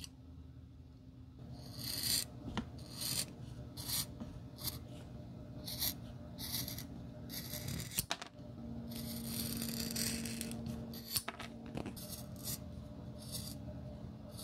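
Large steel shears cutting a sheet of black rubber soling to shape for a new sole: a series of short crunching snips, with one longer continuous cut a little past the middle.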